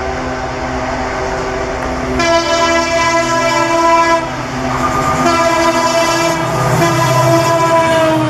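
WDP4D diesel locomotive passing close at speed: its EMD two-stroke V16 engine drones, and about two seconds in its air horn starts sounding in long loud blasts that run on to the end, dropping slightly in pitch as the locomotive goes by.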